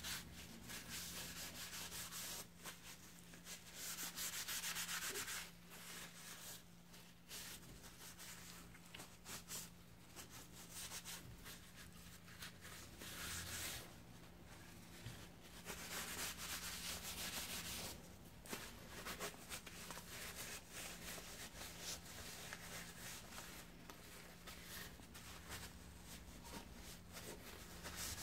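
Paper towel rubbing and wiping a paste finish over a wooden molding plane, in bouts of brisk friction strokes with short pauses between them.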